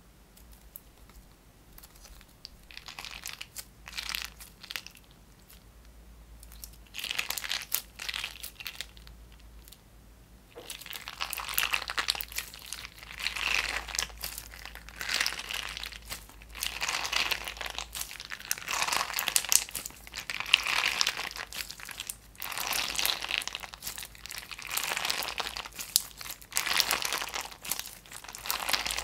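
Clear-base crunchy slime squeezed, folded and stretched by hand, crackling and popping in dense bursts. It is quiet for the first couple of seconds, then louder from about ten seconds in, swelling and easing every few seconds with each squeeze.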